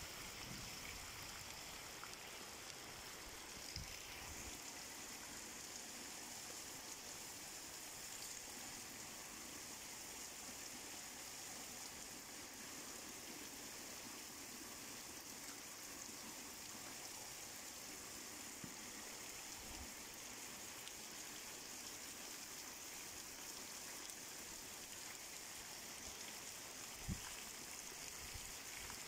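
Steady rain falling on a village's mud lanes and brick walls, an even hiss, with rainwater running along the lane. A brief low thump a few seconds in and another near the end.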